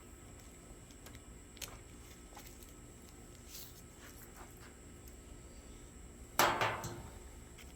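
Handling noise from hard plastic gear: a few faint light clicks, then one louder short clatter with a brief ring about six and a half seconds in.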